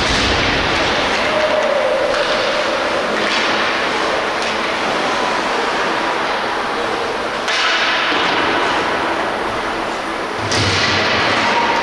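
Ice hockey game sound: skate blades scraping and gliding on the ice, with occasional knocks of sticks and puck, as a steady noisy wash that changes abruptly in level twice near the end.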